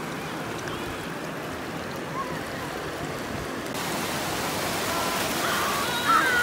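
Shallow surf washing over sand, a steady rush of water that grows fuller about two-thirds of the way through, with children's voices rising over it near the end.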